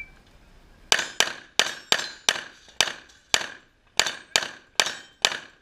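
Limited-division competition pistol fired in a fast string of about eleven shots, starting about a second in at roughly two to three shots a second, with a few slightly longer gaps.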